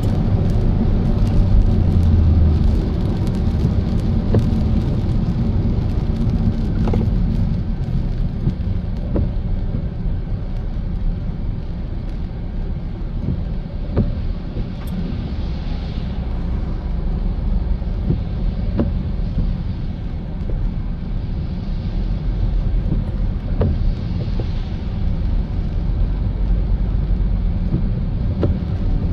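A car driving: a steady low rumble of engine and road noise, with scattered light ticks and a couple of brief hissing swells.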